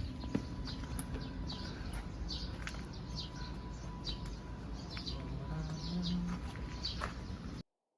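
Small birds chirping: many short, falling chirps, several a second, over a low background rumble. The sound cuts off suddenly near the end.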